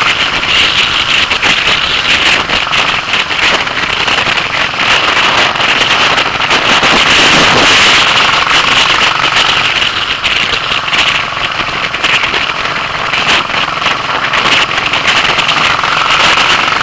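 Royal Enfield single-cylinder motorcycle engine running under way, heard from on the bike as a fast, rough, crackly beat over wind and road noise.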